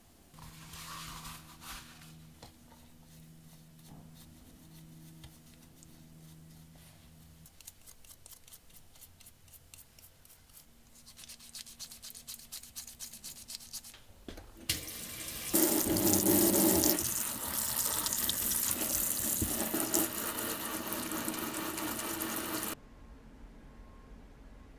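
Stiff toothbrush scrubbing paint remover off small diecast metal parts in a plastic tub, with a steady hum in short stretches early on, then a tap running loudly into a sink for about eight seconds as the parts are rinsed, cutting off suddenly near the end.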